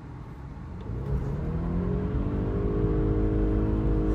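BMW E90 318i's four-cylinder petrol engine revving hard on a launch. Its pitch climbs and it grows louder from about a second in, then holds near the end.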